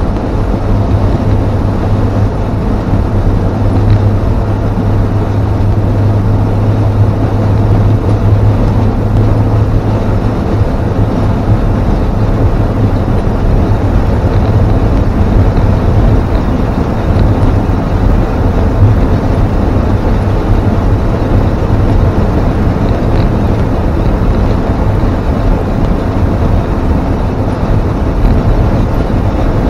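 Inside the cab of a 1952 Ford F1 pickup cruising on the highway while towing a loaded trailer: a steady engine drone with tyre and wind rumble. A low hum is strongest for about the first twelve seconds, then eases.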